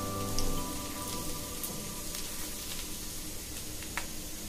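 Chopped garlic sizzling in a little oil in a nonstick frying pan, a steady crackling hiss, with a spatula stirring it briefly about half a second in.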